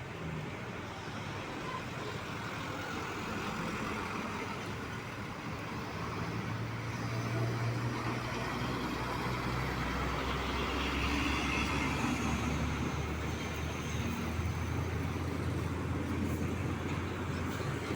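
Heavy truck engine running with traffic noise, its low rumble growing louder about halfway through and staying up.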